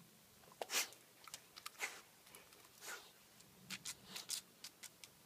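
Scattered short scrapes and clicks on a concrete path as a dog paws and noses at a small crab, claws and shell scratching on the rough concrete, with a few slightly longer scuffs about a second apart early on.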